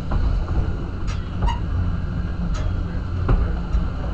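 Lookout Mountain Incline Railway car running up its track, heard from on board: a steady low rumble of wheels on the rails, with a few short sharp clicks.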